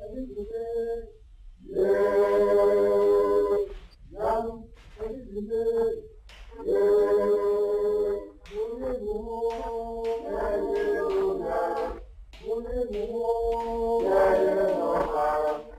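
Unaccompanied group of voices singing, in phrases of held notes broken by short pauses.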